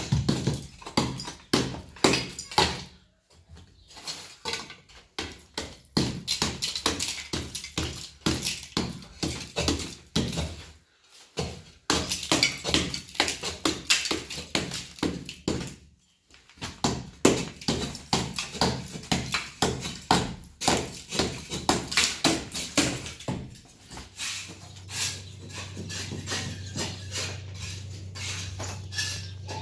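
Old plaster being chipped and scraped off a wall with a hand tool: rapid, uneven taps and scrapes with a few short pauses. A low steady hum joins near the end.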